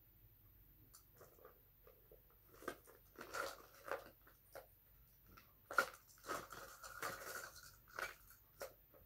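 Plastic beads and toy jewelry clicking and rattling as a hand rummages through a plastic tub, irregular clicks and rustles, busiest from about three seconds in.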